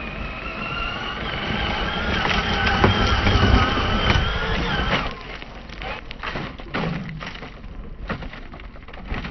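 Traxxas Summit RC truck's brushed electric motor and gears whining under throttle, rising slightly in pitch and growing louder as it drives close over gravel, then cutting off about five seconds in. A few knocks and gravel crunches follow.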